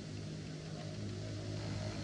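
An engine running steadily off-picture, a low even hum that slowly grows louder.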